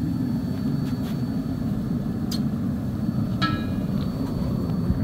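Propane burner of a small aluminum-melting furnace running with a steady low roar. A sharp tick comes a little after two seconds, and a single ringing metallic clink about three and a half seconds in.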